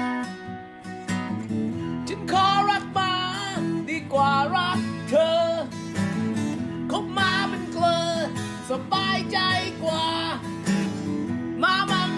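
Punk-blues fusion song with guitar accompaniment. A singer comes in about two seconds in, singing a verse in Thai over the band.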